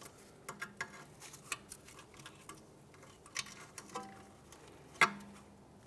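Light metallic clicks and ticks of small steel washers being handled and worked off a steering knuckle during hand work, with one sharp click about five seconds in.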